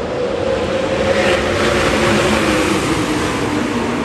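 A pack of 410 sprint cars racing under green, their V8 engines running hard with several engine notes overlapping and sliding in pitch. The sound swells around the middle as the cars pass.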